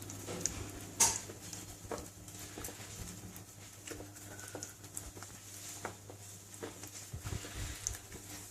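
A utensil stirring thick chocolate cake batter in a mixing bowl, with irregular soft taps and clicks against the bowl and a sharper click about a second in. A steady low hum runs underneath.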